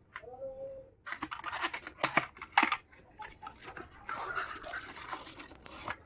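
Plastic packaging crinkling and tearing as a toy is unwrapped, with many sharp crackles and snaps. A short pitched sound comes just before it.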